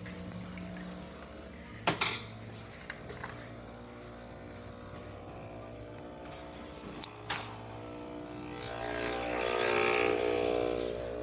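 Breville 870XL espresso machine running on a new pump and solenoid valve: a steady low pump hum with a few sharp clicks and knocks, growing louder with several stacked tones in the last few seconds.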